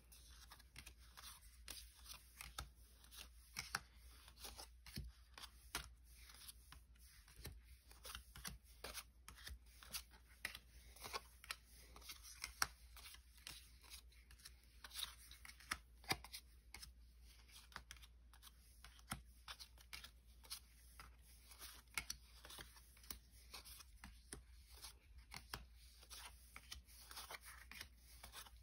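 Quiet handling of Pokémon trading cards and their packaging: an irregular run of soft rustles, flicks and small clicks.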